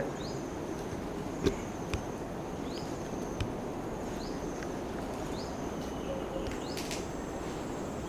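Outdoor insect ambience: a steady high hum with a short rising chirp repeating about every second and a bit. A few faint knocks stand out, the loudest about one and a half seconds in and another about three and a half seconds in.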